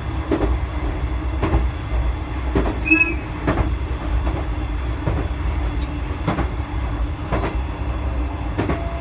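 Kamaishi Line diesel railcar running over jointed track: the wheels click over the rail joints about once a second above a steady low rumble and hum, with a brief high squeal about three seconds in.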